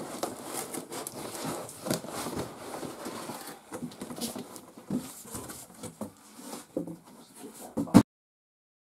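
Cardboard box and packaging being handled: rustling, scraping and knocks as items are lifted out of the shipping carton, with a sharp knock just before the sound cuts off abruptly about eight seconds in.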